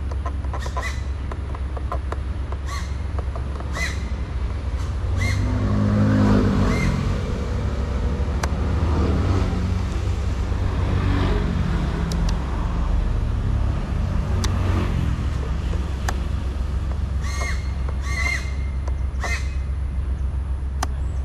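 Short harsh bird calls, about four in the first seven seconds and a quick run of three near the end, over a steady low traffic rumble; a vehicle passes by, louder for several seconds in the middle.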